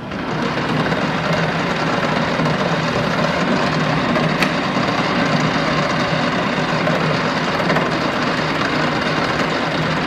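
Sheldon EM-46-P precision lathe running under power. Its three-phase motor and headstock come up to speed within the first second, then run steadily, with one short tick about four seconds in.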